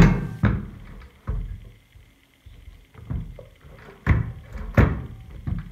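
EZ-Tools 18-inch push reel mower handled on a workbench, its wheels turned by hand to check the reel-to-bed-blade adjustment: several irregularly spaced thunks and knocks.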